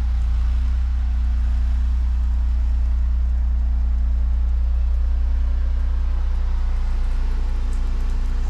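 An engine running steadily, giving a constant low drone with no change in speed.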